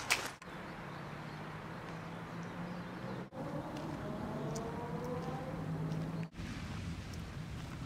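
A low steady hum with the drone of a distant engine slowly rising and falling in pitch through the middle. It is broken by brief dropouts about half a second in, near the middle and past three quarters.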